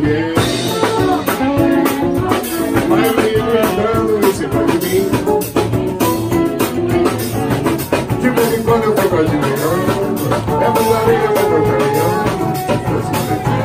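Live samba rock band playing, saxophone and strummed acoustic guitar over drums.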